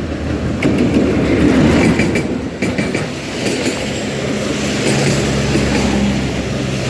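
Passenger train hauled by a D19E diesel-electric locomotive rolling into a station. Its wheels clack over the rail joints a few times in the first few seconds, under a continuous rumble, and a steady low engine hum comes up about halfway through.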